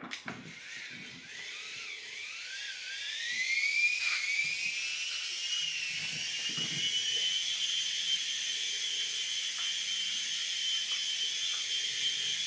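Small electric motor of an Air Hogs Moto Frenzy RC motorbike whining as it spins up, the pitch rising over the first few seconds and then holding a steady high whine. A few faint knocks sound under it.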